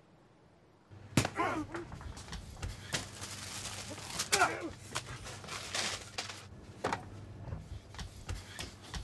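Near silence, then about a second in a scuffle breaks out: a run of loud thuds, knocks and clattering with short cries, one at the start, another about four seconds in and a third at the very end.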